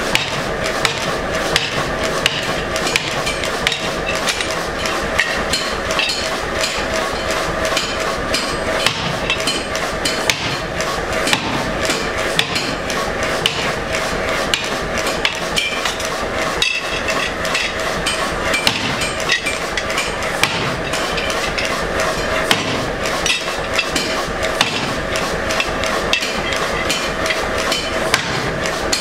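Narrow-peened hand hammer striking a steel leaf on a square steel block: rapid, even metal-on-metal blows, several a second, texturing a forged leaf.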